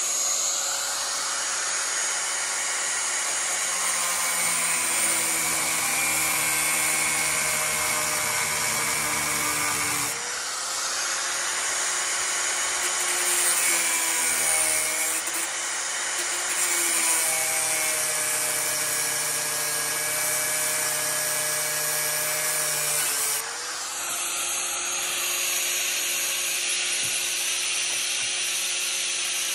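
Handheld electric angle grinder running continuously while cutting metal at a box truck's door lock. Its whine sags in pitch each time it is pressed harder into the cut, about 10, 15 and 23 seconds in, then recovers.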